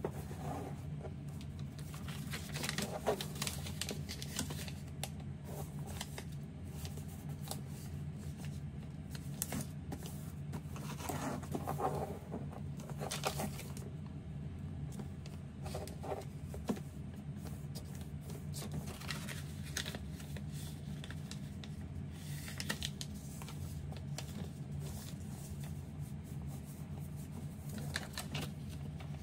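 Sheet of origami paper rustling and crinkling as it is handled and folded, with scattered short crackles of creasing. A steady low hum runs underneath.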